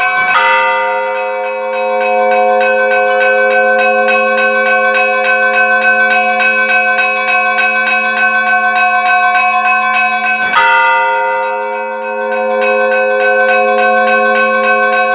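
Church bells ringing: small bells struck in a quick, even rhythm over sustained ringing tones, with a heavier bell stroke near the start and again about two-thirds of the way through.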